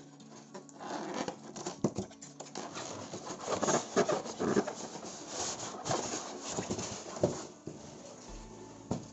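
Polystyrene foam packing and cardboard scraping and creaking against a cast-iron sewing machine head as it is worked loose and lifted out of its box. It is a run of rustles with many sharp knocks and clicks that dies down near the end.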